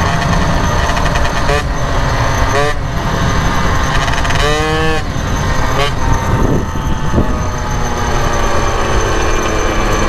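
Two-stroke moped engine running under way, with wind rushing on the microphone. Its pitch rises and falls briefly a few times.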